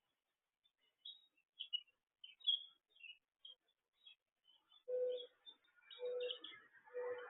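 Small birds chirping in short, high, scattered notes. From about five seconds in, a bird gives three low calls about a second apart.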